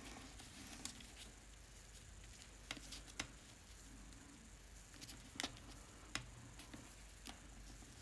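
A few faint, scattered taps and clicks of paper and craft tools being handled on a work table, over a low room hum.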